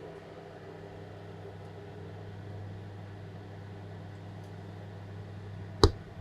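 A steady low hum, with one sharp knock about six seconds in.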